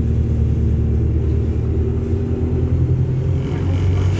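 Wright StreetLite single-deck bus heard from inside the passenger cabin: the diesel engine drones steadily and low, and its note shifts about three seconds in, with some added hiss.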